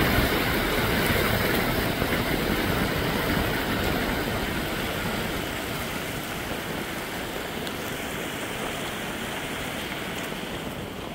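Brown floodwater from a tropical storm rushing fast down a concrete drainage channel, a steady rushing noise that slowly gets quieter.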